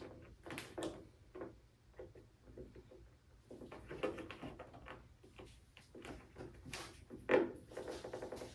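Clip-on rubber firewall-to-hood seal being pushed by hand onto the firewall edge: irregular taps, knocks and rubbing, with one louder knock near the end. The clips go on hard.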